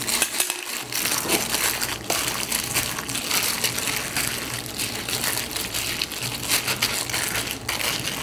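Wet squishing and squelching as a plastic-gloved hand kneads thinly sliced pork into a thick doenjang (soybean paste) marinade in a bowl, with crinkling of the plastic glove. The sound is continuous, with many small squelches and crackles.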